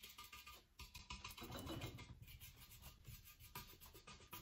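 Faint, repeated scratchy strokes of a paintbrush slapping and scrubbing thick paint onto a vase in quick crisscross movements.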